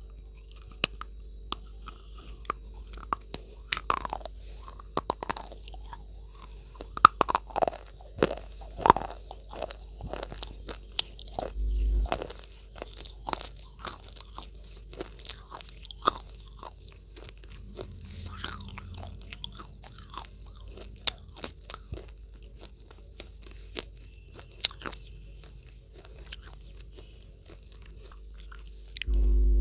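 Close-miked biting and chewing of a hard white chalky block: sharp crunches, dense for the first ten seconds or so and then more spaced out. A steady electronic tone begins just before the end.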